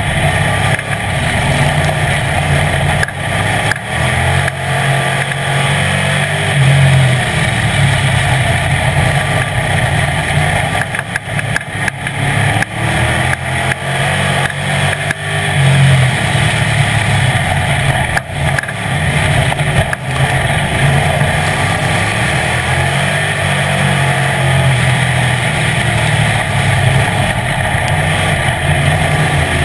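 Street stock race car's engine at racing speed, heard from inside the car, its pitch and loudness swelling and easing every several seconds as the throttle goes on and off. Sharp knocks and rattles from the car break in now and then.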